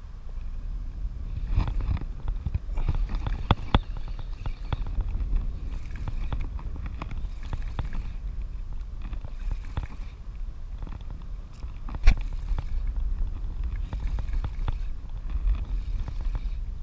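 Wind buffeting the microphone, a steady low rumble, with scattered sharp clicks and knocks on top. The loudest knock comes about twelve seconds in.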